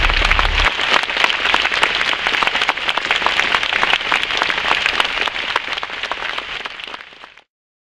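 Audience applauding, many hands clapping at once. The applause fades near the end and then cuts off suddenly.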